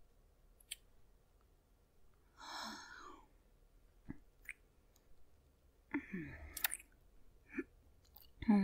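Close-miked mouth and breath sounds from a woman: a soft breathy sigh about two and a half seconds in, scattered mouth clicks and lip smacks, and short low murmurs near the end, the loudest right at the end.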